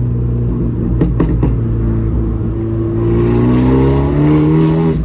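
Abarth 124 Spider's turbocharged 1.4-litre four-cylinder, breathing through a Monza exhaust with its valves wired open and a 200-cell sports cat, heard from the open cockpit. It runs with a steady note in a lower gear, then rises in pitch and gets louder from about three seconds in as the car accelerates. A few short cracks come about a second in.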